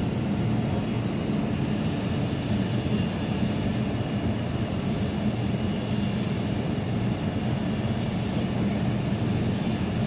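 Steady low mechanical drone of a power plant's machinery, unchanging throughout.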